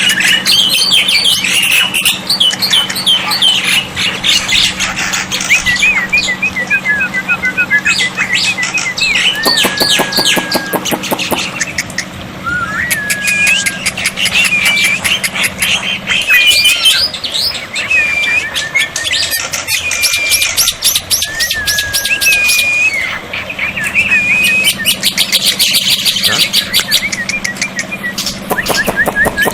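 Black-winged myna (jalak putih) singing a long, varied song of whistles, chirps and fast rattling clicks, ending in a run of short repeated whistled notes.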